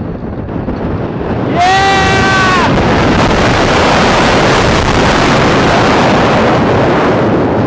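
Lightning Rod RMC wooden roller coaster train cresting a hill and rushing down the track, with heavy wind noise on the on-ride microphone; the rush swells suddenly about a second and a half in as the train picks up speed. A rider lets out a short yell as the drop begins.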